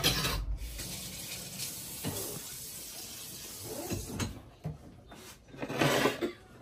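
Thick barbecue sauce squeezed from a bottle into a glass measuring cup, running and sputtering steadily for a few seconds. A louder burst of sputtering comes near the end.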